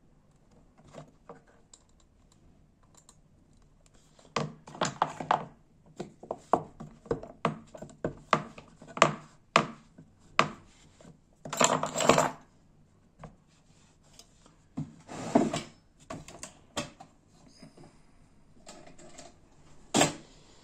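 Metal hand tools, a wire crimping tool and a pair of pliers, handled and knocked against each other and the bench: a run of sharp metallic clicks and clatters, with a short rasping scrape about twelve seconds in and a last knock near the end.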